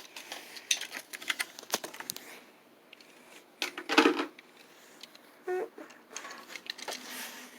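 Plastic blister packaging of a Hot Wheels die-cast car crackling and clicking as it is handled and opened, with a louder rustle about four seconds in.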